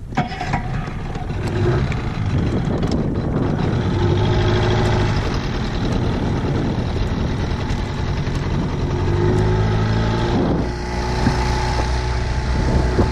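Outboard motor running as it drives a small inflatable boat across the water, its pitch rising and falling a few times, under a rush of wind and water that grows louder about ten seconds in.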